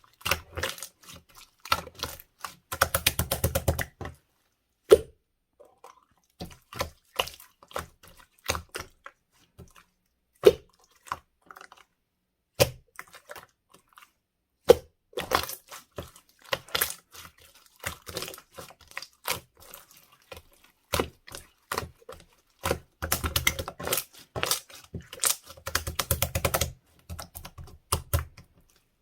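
Translucent slime being squished and poked by hand, giving irregular sharp clicks and pops with dense runs of crackling about three seconds in, around the middle, and again near the end.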